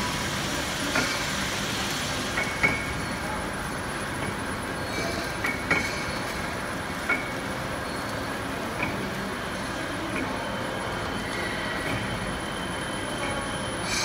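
Dishwasher-tablet flow-wrapping line running: a steady mechanical clatter and whir, with a few sharp, briefly ringing clinks scattered through it.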